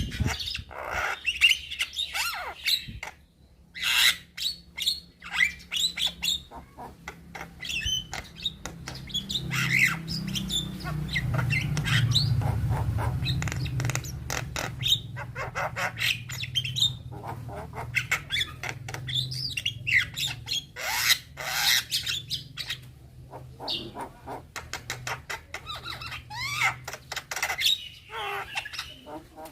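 Young Javan myna singing a busy, varied song of harsh squawks, chattering clicks and short whistled phrases in quick bursts with brief pauses. A low hum runs underneath through the middle stretch.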